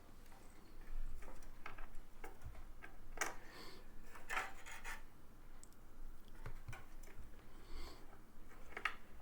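Hands working a power-supply cable and its 24-pin connector inside a cramped PC case: plastic rubbing and scraping with scattered light clicks.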